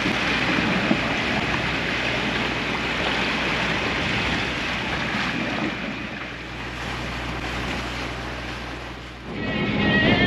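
Wind and water rushing past a sailing yacht under way, with the low steady drone of its inboard engine underneath. Music comes in just before the end.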